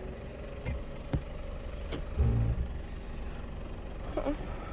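Four-wheel-drive engine running at low speed, with a couple of sharp knocks early on and a short louder rev about two seconds in as the vehicle crawls down into the creek crossing.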